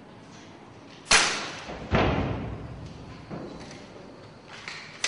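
Air gun fired twice, two sharp reports a little under a second apart, each echoing as it dies away, followed by a few fainter knocks.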